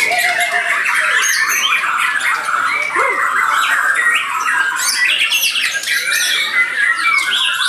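Several caged white-rumped shamas (Bornean murai batu) singing over one another in a dense, unbroken chorus of rapid, varied whistles and chattering phrases.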